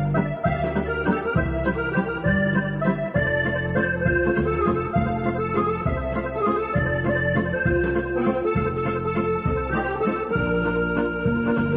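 Yamaha arranger keyboard playing a waltz: a sustained melody over a steady bass-and-chord accompaniment.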